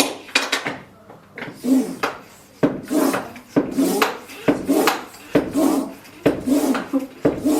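A high-pressure PCP airgun hand pump being worked by hand in a steady rhythm of strokes, about one a second, building pressure in a sealed test plug.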